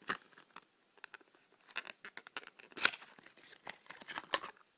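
A small cardboard product box being opened by hand: an irregular run of sharp crinkling and tearing rustles, loudest about three seconds in and again near the end.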